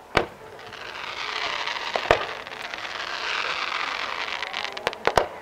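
Aerial firework shells bursting: a sharp bang right at the start, another about two seconds in, and three in quick succession near the end, with a steady hiss of burning effects in between.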